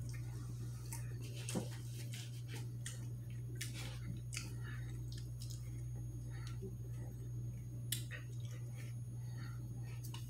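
Soft eating sounds of a man spooning up a thick chocolate malt shake: scattered small clicks and mouth smacks, with a couple of sharper clicks, over a steady low hum.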